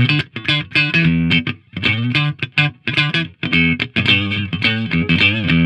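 Electric guitar, a Fender Stratocaster, playing through a Marshall cabinet and picked up by a Roswell Delphos condenser microphone. It plays a rhythmic phrase of picked notes and chords.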